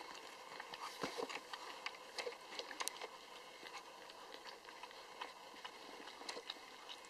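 Newborn Lhasa Apso puppies suckling at their mother: faint, irregular little clicks and smacks, busiest in the first few seconds.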